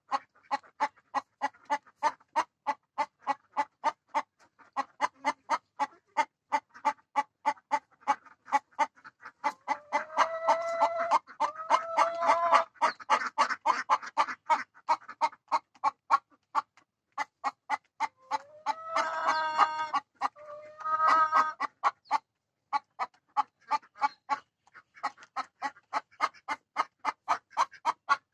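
Rhode Island White laying hen clucking steadily and quickly, about three short clucks a second, breaking twice into longer drawn-out squawks, about a third of the way in and again about two-thirds in. This is the hen's call as she is about to go onto the nest to lay an egg.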